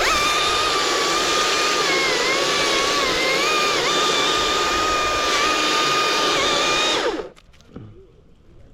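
Chainsaw run at full throttle for about seven seconds, its high whine dipping in pitch a few times as it cuts, then released and winding down near the end.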